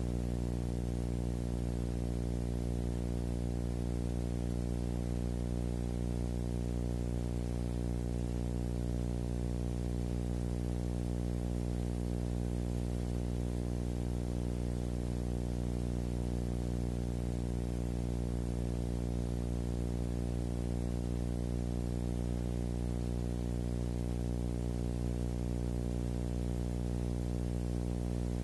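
A steady low drone with many overtones, under a faint even hiss.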